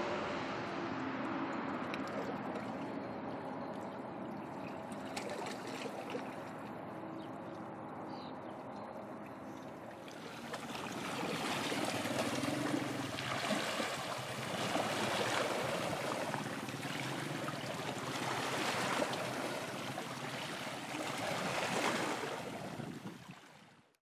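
Small waves washing against rocks at the shoreline, swelling and falling back about every one and a half to two seconds in the second half, over a low steady hum in the first half. The sound fades out at the very end.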